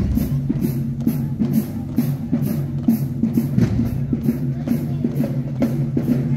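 Marching band playing on the march, its drums (snare and bass drums) keeping a steady, even beat.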